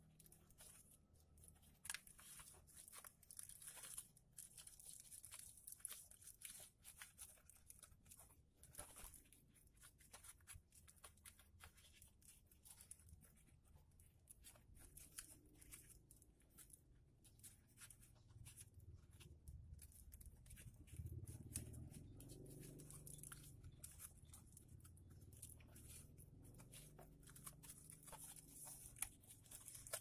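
Faint crinkling and rustling of paper being folded and pressed into creases by hand, with many small irregular crackles.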